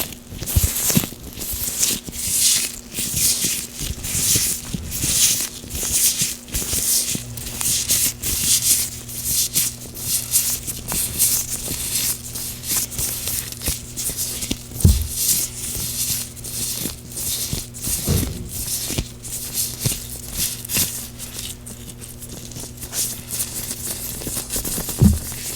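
Gloved hands rubbing with oil, making a quick run of crackly, slippery rubbing strokes, several a second, close to the microphone.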